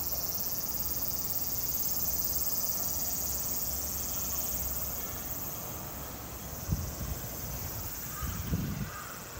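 Cicadas buzzing in a dense, steady, high-pitched chorus from the trees, fading somewhat about halfway through. A couple of short low thumps come near the end.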